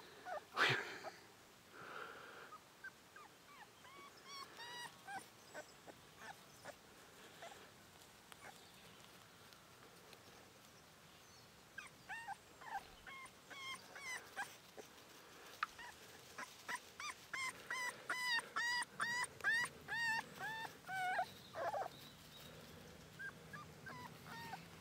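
Month-old Cane Corso puppy whimpering in short, high-pitched whines. The whines come scattered at first, then in a quick run of several a second through the second half.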